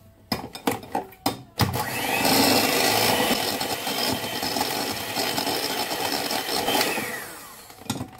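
Electric hand mixer running steadily for about five seconds, beating sugar into a cream cheese mixture in a bowl, then winding down as it is switched off. A few knocks and clatters come before it starts and just after it stops.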